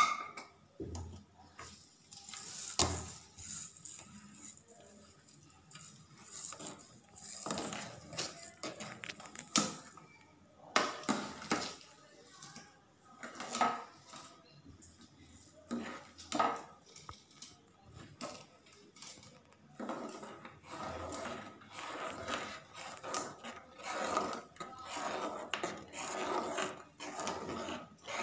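Metal ladle stirring milk and vermicelli in an aluminium cooking pot, clinking and scraping against the pot's sides and bottom in irregular strokes, busiest over the last several seconds.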